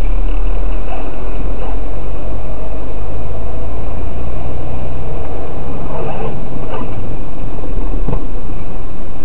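Steady, loud low rumble of a moving vehicle's engine and road noise, picked up inside the cab by a dashcam.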